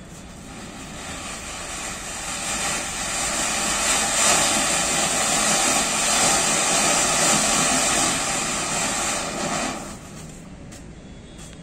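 Shammah Fireworks 'White House' ground fountain spraying sparks with a steady rushing hiss. It builds over the first few seconds and holds through the middle, then drops off sharply about ten seconds in as the fountain burns down.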